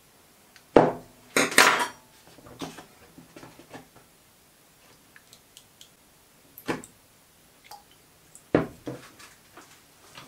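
A small metal chuck part being handled against plastic pots as it is lifted out of blacking solution and rinsed in a tub of water: a few sharp knocks with lighter clatter between, the loudest cluster about a second in.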